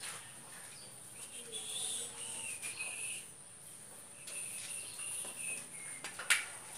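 Insects chirring steadily at a high pitch, with one sharp tap about six seconds in.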